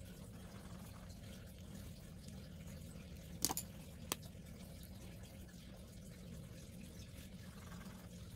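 Two sharp clicks about half a second apart from handling a plastic fineliner pen, over a faint steady room hum.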